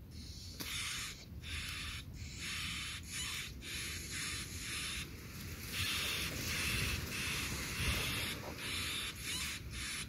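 Ashy prinia nestlings begging: a string of short, raspy, hissing calls about one or two a second, running almost together in the second half as the parent brings food.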